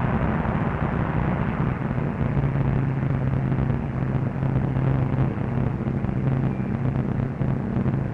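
Bristol Blenheim bombers' radial engines running in a steady, continuous hum as the planes fly past in formation, heard through the hiss of an old newsreel soundtrack.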